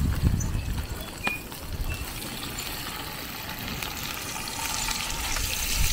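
Carp pieces deep-frying in hot oil, a steady sizzle, with a low rumble in the first second or so.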